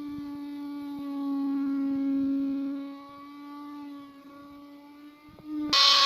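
Maktec wood router running with a steady whine. Near the end its curved profile bit bites into the wooden door frame, and the sound jumps suddenly to a much louder, harsh cutting noise.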